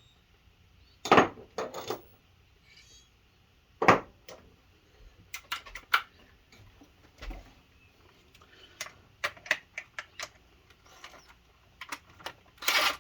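Scattered metallic clicks and clinks of hand tools, sockets and bolts being handled while fitting a water pump to an engine, with a louder short rattle near the end.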